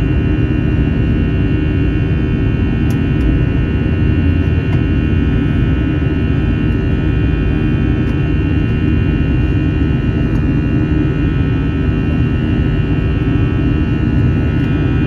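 Airbus A321 jet engines running steadily, heard inside the passenger cabin: a low rumble with several steady whining tones over it.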